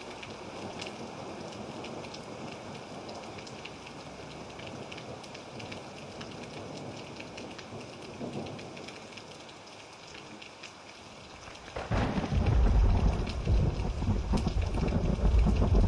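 Thunderstorm recording: steady rain falling with scattered patters, then about three-quarters of the way through a sudden loud, deep roll of thunder breaks in and keeps rumbling.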